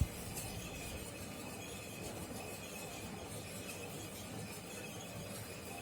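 Faint steady background hiss with no distinct events: room tone.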